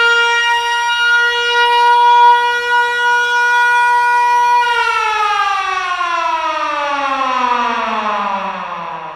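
Siren holding one steady high pitch for about four and a half seconds, then winding down in a long, slow falling glide that fades toward the end.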